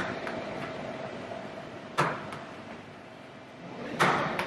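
A homemade glue-and-borax bouncy ball dropped onto a tabletop: sharp knocks about two seconds apart, a faint one at the start and two clear ones, each followed by a smaller knock as the ball bounces again.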